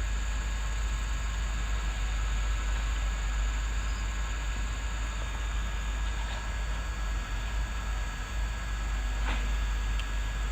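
Backhoe engine running steadily with a deep low rumble, with a single short knock about nine seconds in.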